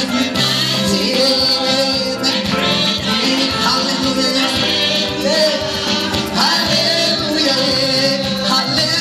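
Church worship team of several singers singing into microphones over lively instrumental accompaniment with a steady beat.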